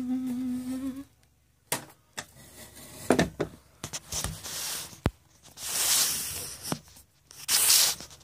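A woman hums one short steady "mmm" for about a second. Then come close-up handling noises: clicks, knocks and loud rubbing and scraping as a hand grips and moves the camera right against its microphone.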